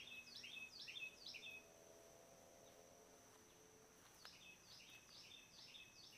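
Faint songbird singing two runs of quick repeated phrases, each a downward slur followed by a short steady note, about two to three phrases a second, with a pause of a couple of seconds between the runs.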